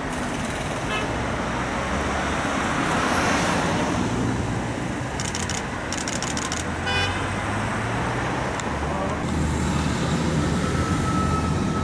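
Road traffic: vehicle engines running and passing steadily, with two short runs of rapid clicks about five to six and a half seconds in and a brief tone around seven seconds.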